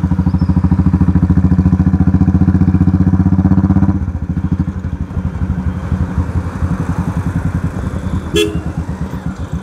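Motorcycle engine fitted with an aftermarket exhaust, running steadily under way, then dropping off about four seconds in as the throttle eases. A short horn toot sounds near the end.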